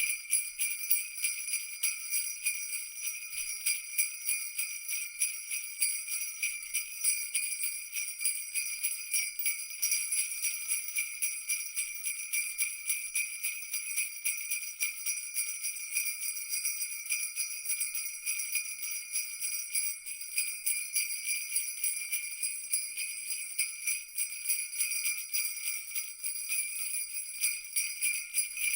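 Sleigh bells (jingle bells) shaken continuously in a steady rapid jingle, a dense bright ringing with many quick strikes and no low sound beneath.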